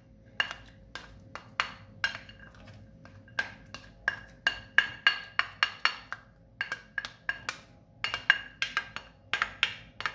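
Spoon tapping and scraping against a plate, knocking chopped garlic and onion off it into a pot of water: a long run of sharp clinks, often several a second in bunches, each with a short ring.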